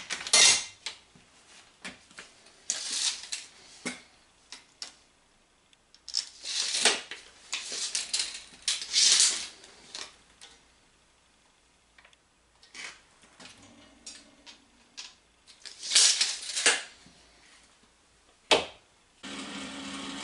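Workshop handling noise: steel framework, clamps and tools being moved and set, in irregular short bursts of scraping and clattering with sharp clicks. Near the end a steady machine hum starts, the welding set powered up ready to tack.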